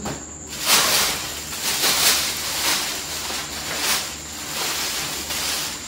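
Packaging rustling and crinkling in irregular bursts as purchased items are handled.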